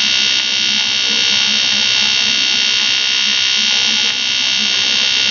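AC TIG welding arc from an Eastwood TIG 200 AC/DC welder on thick 6061 aluminum: a loud, steady electric buzz held without a break, dipping briefly twice.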